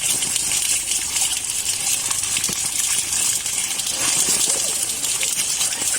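Water running steadily, with scattered light clicks and clatters of live field crabs' shells knocking in a container.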